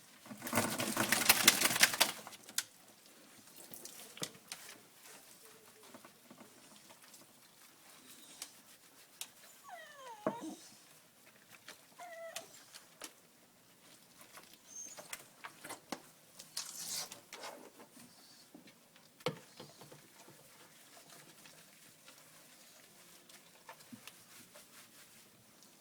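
A wet dog shaking its coat in a bath: a loud flapping burst about a second and a half long near the start. Quieter scattered knocks follow, with a couple of short squeaky glides around the middle.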